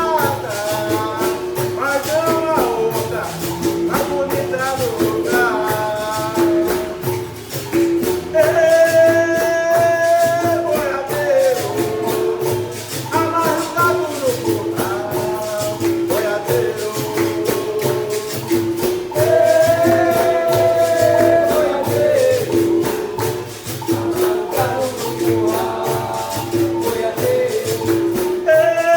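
Capoeira music: a voice singing, with long held notes twice, over a berimbau and pandeiro keeping a steady, even rhythm.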